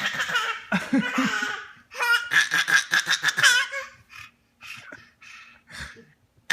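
Bursts of laughter in quick pulses, with a high, wavering squeal from about two seconds in, then softer short laughs.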